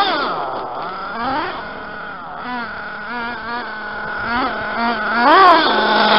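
Big-block nitro engine of a Reely Rex RC buggy revving up and down, its pitch rising and falling several times.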